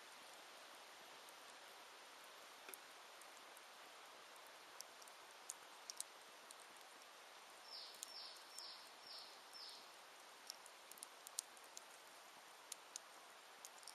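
Wood fire crackling softly: scattered sharp pops and ticks over a steady faint hiss. About eight seconds in, a bird calls five quick falling notes in a row.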